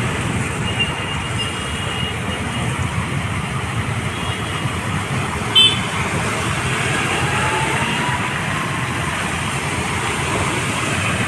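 Steady outdoor road-traffic noise, with a short high-pitched toot about five and a half seconds in.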